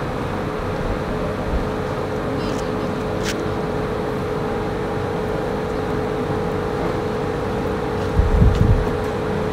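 Steady vehicle engine noise with a constant low hum, heard outdoors by the roadside. There is a short sharp click a little over three seconds in, and a brief cluster of low thumps about a second before the end.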